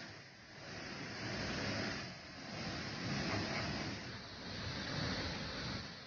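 Rushing water of a shallow rocky river and a small waterfall: a steady hiss that swells and dips a few times.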